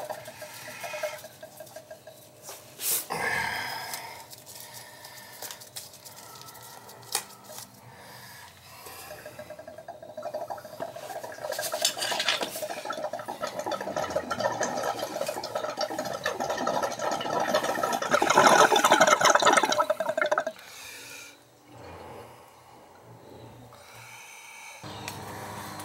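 Brass fitting clinking as a garden hose is threaded by hand onto a cast iron radiator's drain valve, then water rushing through the opened valve into the hose with a hiss and a whistling tone. The rush builds over about ten seconds and cuts off suddenly.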